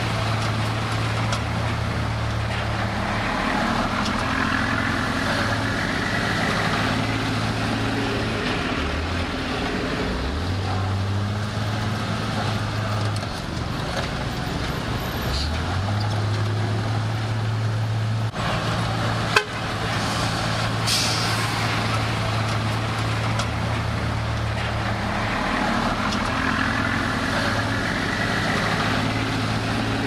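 Heavy diesel earthmoving machinery running steadily. Its low engine hum shifts up and down in pitch several times as engine speed changes, and there is a single sharp knock about 19 seconds in.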